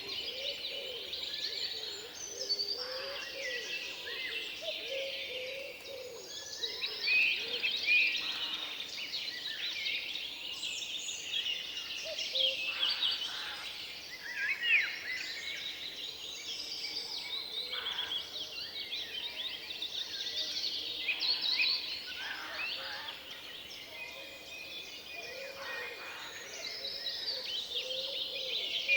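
Forest ambience: several songbirds singing and chirping at once, a dense, continuous chorus of high trills and twitters with a few lower warbling notes.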